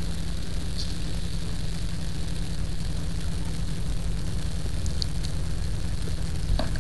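Fire trucks' engines running, a steady low rumble, with a few faint clicks near the end.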